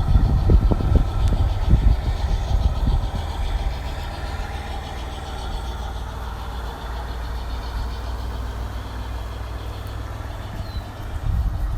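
Battery-powered G-scale model train running on an outdoor garden layout, its onboard sound unit playing an engine rumble. The low rumble is heavier and uneven for the first few seconds, then settles into a steady hum.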